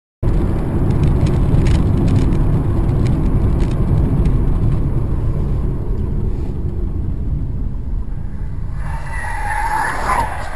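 Car on the road: a steady low rumble of engine and road noise, and from about nine seconds in a brief tyre squeal as a car skids.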